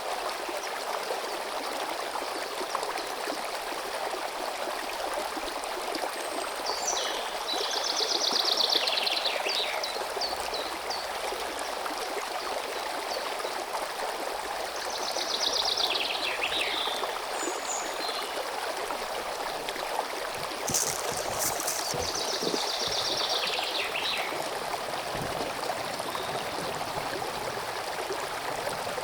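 A stream running steadily, with a songbird singing the same short descending trill phrase four times, about every six or seven seconds.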